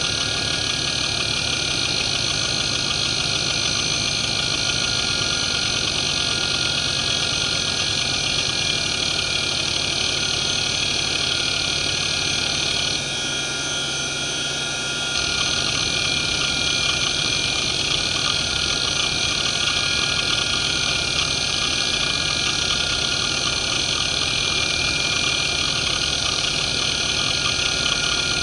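1993 Fuji Electric FK319A-240R 240 MB hard drive running a seek test: the head actuator chatters in a rapid stream of seeks over a steady high spindle whine from its worn spindle bearings. About halfway through, the seek clatter drops out and the sound goes a little quieter for about two seconds, then the seeking starts again.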